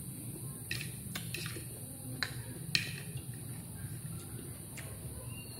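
Eating salad: a handful of short, sharp crunches and clicks from chewing lettuce and cucumber and a fork working on the plate, the loudest about two and three seconds in, over a low steady hum.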